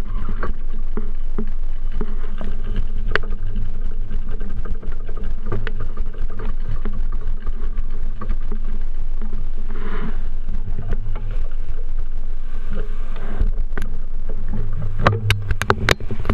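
Steady low rumble of a bicycle rolling over city pavement, picked up by a camera mounted on the handlebars, with street traffic in the background. A cluster of sharp clicks and rattles comes near the end.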